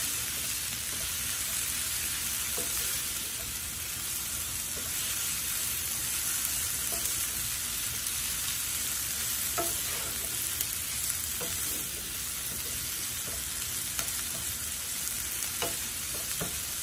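Coriander leaves and sliced garlic sizzling in mustard oil in a non-stick frying pan, with a steady frying hiss. A wooden spatula stirs them and scrapes against the pan a few times.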